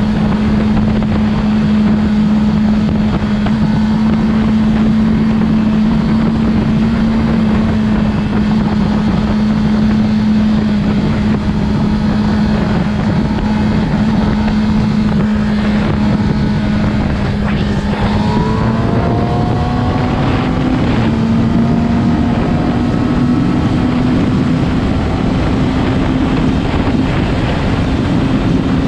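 Yamaha R6's 600 cc inline-four engine running steadily at high revs, the pitch stepping up a little about two-thirds of the way through. The owner reports an abnormal sound from it above 5000 rpm.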